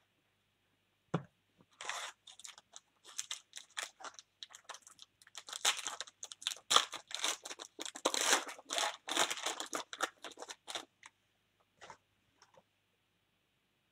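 Foil wrapper of a Panini Prizm baseball card pack being torn open and crinkled: a run of crackling rustles that starts about two seconds in, is densest in the middle and stops a few seconds before the end.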